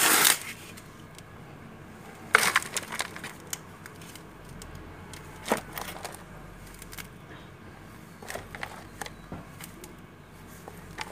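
Hands scooping and crumbling loose potting soil from a basin into a plastic pot: gritty scraping and rustling in uneven bursts. The loudest are right at the start and about two seconds in, with smaller ones later.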